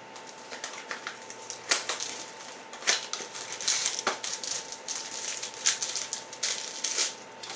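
Irregular crinkling and crackling of trading-card pack wrappers and cards being handled, with sharp clicks scattered across it.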